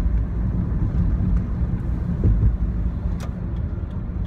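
Steady low rumble of a car's road and engine noise heard inside the cabin while driving, with one faint click about three seconds in.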